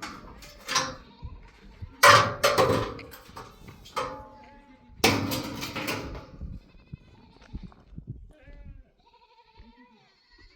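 Livestock bleating, with two loud calls about two and five seconds in and quieter ones around them. Faint high chirping near the end.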